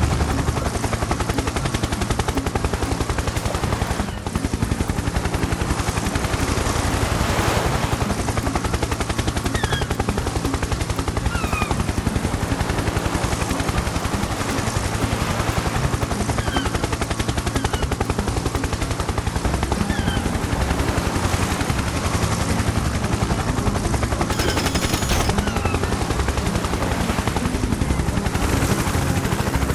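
A motor running steadily with a fast, even rattle. A few short high chirps are heard over it.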